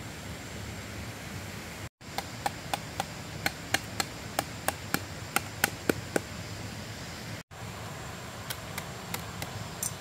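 A blade chopping in quick, sharp strokes, about three a second, for some four seconds over a steady background hiss. After a brief dropout comes a softer run of lighter strokes near the end.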